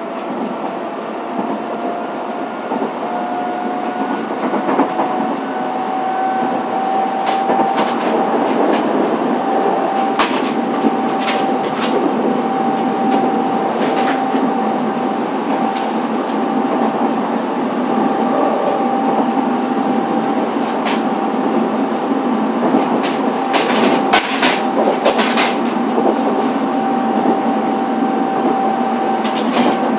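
Onboard running sound of a Fukuoka City Subway 2000 series train: a steady motor whine rises slightly in pitch and grows louder over the first several seconds as the train picks up speed, then holds. Wheels click over rail joints, in clusters about ten seconds in and again a little past two-thirds of the way through.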